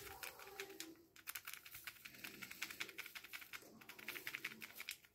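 Instant coffee powder poured from a sachet into a ceramic mug: faint, rapid, irregular ticking and rustling of the granules and the packet.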